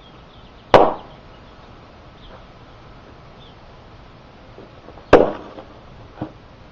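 Golf club whacking full soda cans on dirt: two sharp hits about four seconds apart, the second followed about a second later by a smaller knock.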